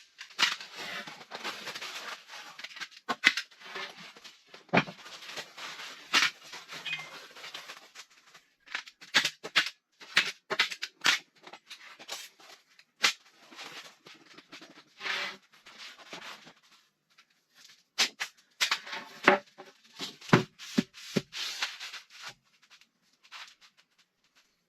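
Handling of basement framing materials: irregular knocks and clicks, with stretches of scraping and rustling in between.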